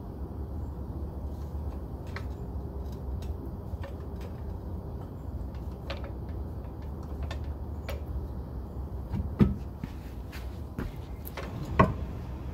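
Hand work on a car's rear differential and its mounts from underneath: scattered light clicks and taps, with two louder knocks about nine and a half and twelve seconds in, over a steady low hum.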